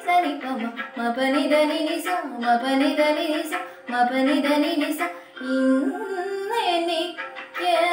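A schoolgirl singing a song, her voice holding notes and sliding between them in a melodic line.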